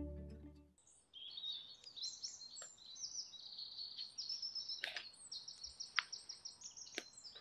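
Several songbirds singing in a spring woodland, with high chirps and quick repeated trills overlapping one another, and a few sharp clicks among them. Soft music fades out in the first second.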